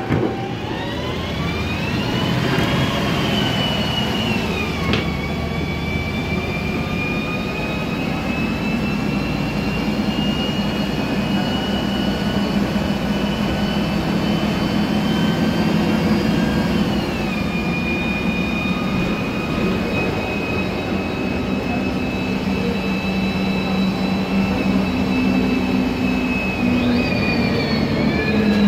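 Voith DIWA 864.3 automatic gearbox of a 2007 MAN Lion's Classic city bus whining under the hum of its MAN E2876 CNG engine, heard from inside the passenger cabin. The whine climbs in pitch as the bus gathers speed and drops at gear changes about five and seventeen seconds in, rising again near the end.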